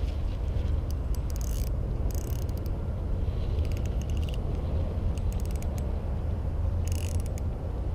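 Spinning reel ratcheting in five short bursts of rapid clicks while a hooked peacock bass is fought on a bent rod, over a steady low rumble.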